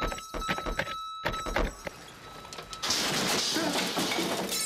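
TV sound effects: a steady high-pitched electronic whine under a quick run of knocks and clatters. About three seconds in, the whine gives way to a loud rushing noise.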